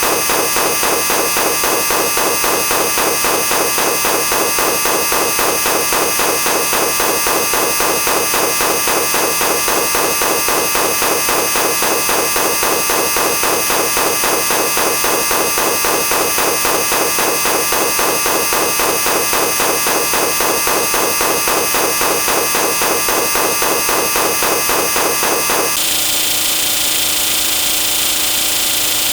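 A dense, harsh wall of many sound effects stacked on top of one another, pulsing very fast and evenly with steady tones running through it; its texture changes abruptly about 26 seconds in.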